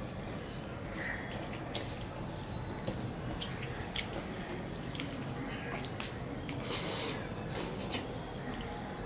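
Hand mixing rice and curry on a steel plate, with wet smacking and chewing sounds of eating by hand: scattered sharp clicks and a couple of short smacks.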